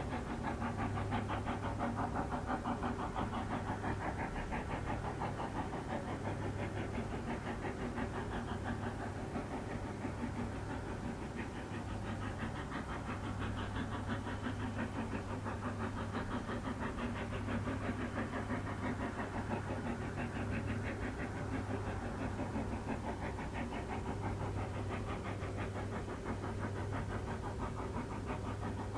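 Exhaust beats of a Brienz Rothorn Bahn steam rack locomotive, No. 2, in a rapid steady chuffing as it works hard pushing its carriages up the steep rack line, with a steady low hum beneath.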